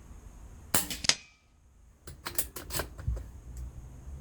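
An air rifle shot and, a split second later, the pellet hitting a cheap toy xylophone target with a dull whack and only a faint, brief ring, the xylophone not sounding a proper note. After a short pause comes a quick run of four or so light mechanical clicks.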